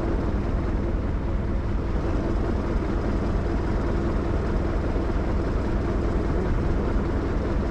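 U650 tractor's four-cylinder diesel engine running at a steady, unchanging speed: a constant low drone.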